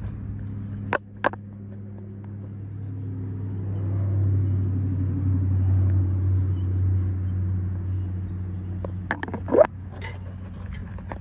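The truck's diesel engine idling, a steady low hum that swells louder for a few seconds in the middle, with a few sharp clicks about a second in and a short cluster of knocks about nine seconds in.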